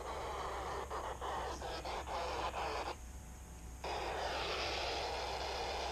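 FM radio static from a receiver tuned to the SO-50 amateur satellite downlink, a steady hiss broken by several brief dropouts. The hiss cuts out for under a second about three seconds in as the signal fades.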